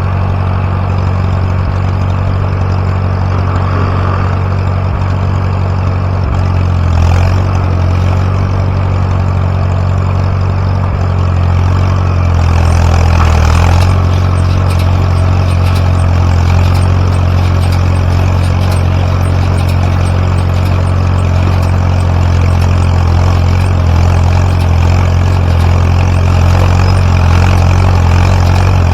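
Tractor engine running steadily, powering a Massey Ferguson No. 12 square baler; light clicks come in from about twelve seconds in.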